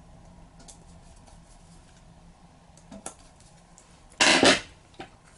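Small metallic clicks of a screwdriver working the float chamber screws on a Honda VFR400R carburetor, then a loud, brief metal clatter about four seconds in, followed by one more click.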